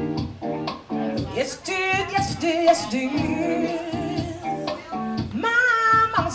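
Live solo guitar-and-voice performance: a guitar strummed in short rhythmic chords, with a voice starting to sing over it about a second in, wavering with vibrato, and holding one long note near the end.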